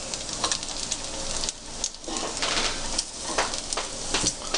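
Bacon frying: a steady sizzle with irregular sharp crackling pops.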